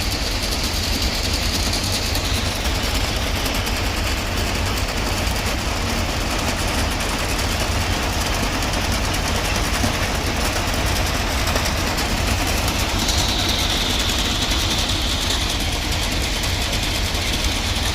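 Heavy railway track machine running steadily with a deep engine rumble, a high hiss riding over it at the start and again from about two-thirds of the way in.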